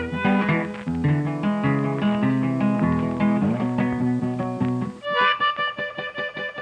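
Background music led by plucked guitar over a bass line, changing abruptly about five seconds in to a section of quick, evenly repeated notes.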